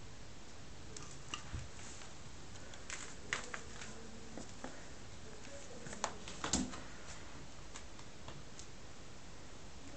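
Soft scattered taps and scratches of a kitten's paws and claws grappling a hanging bathrobe belt, in short clusters about one, three and six seconds in, over a steady low hiss.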